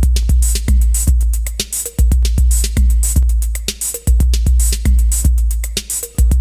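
Background music with a steady electronic beat over a deep bass line, repeating in phrases about every two seconds.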